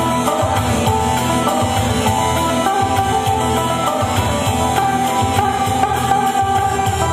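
Karo Batak dance music for a guro-guro aron dance: a melodic lead line over a steady drum rhythm, playing continuously.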